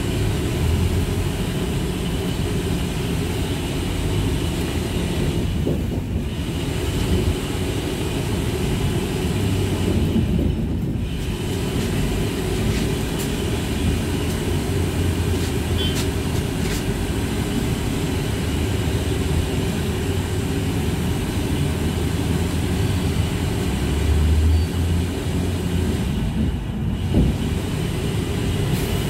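A TrolZa-62052.02 trolleybus under way, heard from inside: a steady low rumble of the drive and road, with a faint steady high whine above it. The higher part thins out briefly three times.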